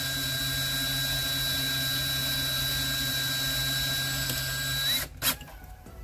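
Cordless drill with a 9/64 bit drilling out the rivet of a diecast toy car, its motor whining at one steady pitch. About five seconds in the pitch rises briefly and the drill stops, followed by a single click.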